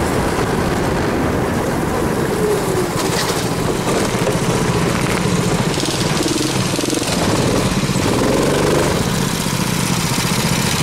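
A 270 cc four-stroke kart engine running, its pitch rising and falling as the throttle is worked.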